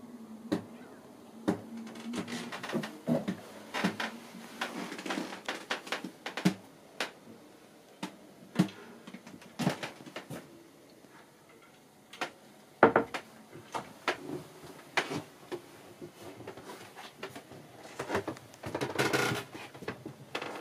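Scattered knocks, clicks and rustles of someone moving through a small cabin while handling a camera, with a denser patch of rustling near the end.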